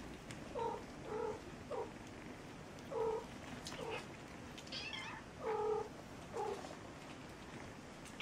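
Cats meowing: a series of about eight short mews spread over several seconds, most of them lower-pitched, with a few higher, thinner ones near the middle.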